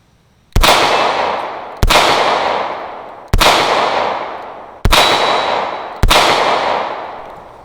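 Smith & Wesson Airweight .38 Special snub-nosed revolver fired five times, emptying the cylinder, with about a second and a half between shots. Each loud report is followed by a long echo that fades away.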